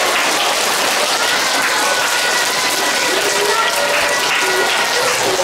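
An audience of children clapping steadily, with a few voices calling out over the applause.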